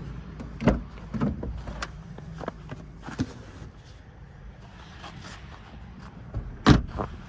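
Clunks and knocks from a Ford Fiesta hatchback's rear door and a plastic storage box being handled on the back seat, a few sharp knocks spread out, the loudest about two-thirds of the way through.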